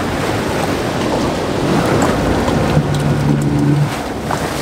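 Wind rushing over the microphone and sea water washing around a small fishing boat. A low steady hum comes in for about a second about two-thirds of the way through.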